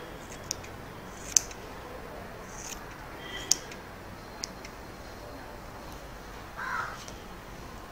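Hairdressing scissors snipping the ends of long hair: a few sharp, irregularly spaced snips, with a short soft rustle near the end.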